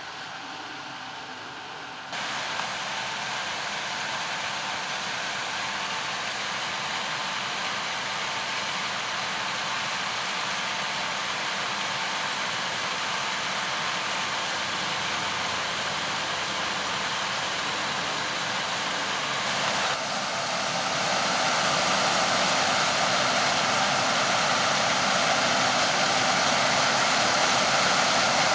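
Farm machinery running steadily with a dense mechanical hum and rush. The level shifts suddenly about two seconds in and again about twenty seconds in, and is louder after the second shift.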